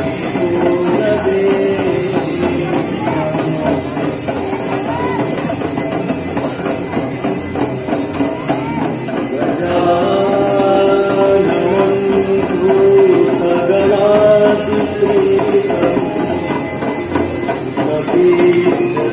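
Hindu aarti ritual: a devotional song with a wavering, held melody, and many bells ringing continuously alongside it.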